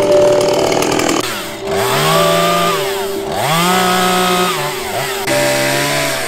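Chainsaw running loud as it cuts firewood: a dense rasp of the chain in the wood, with the engine revving up and dropping back twice midway.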